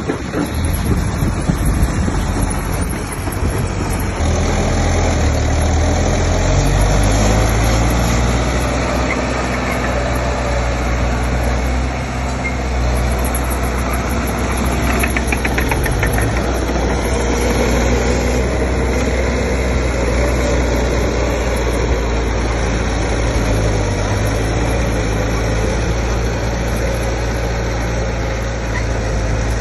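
Diesel engine of heavy earthmoving machinery, a bulldozer or dump truck, running steadily with a low engine note that rises slightly about four seconds in.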